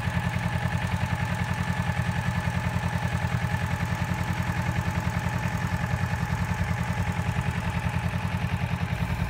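Motorcycle engine idling steadily, with a fast, even pulse.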